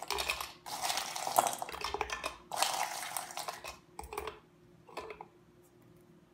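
Ice cubes clattering against hard plastic as handfuls are pushed into the ice chamber of a Soft Shell ice cream ball. There are three longer bursts, then two short rattles about four and five seconds in, then it goes quiet.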